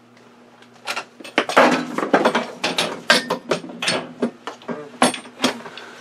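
Metal clanking and rattling as a woodworking pipe clamp is dug out and handled, with many sharp knocks and clinks starting about a second in and ending shortly before the end.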